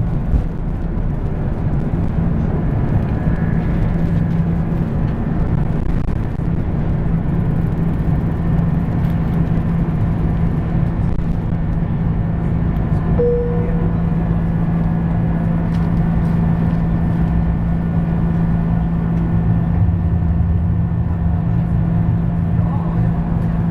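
Cabin noise of an Airbus A330-300 during takeoff: the Rolls-Royce Trent 700 engines at high thrust give a steady, loud roar with a constant low hum. A brief single tone sounds about halfway through.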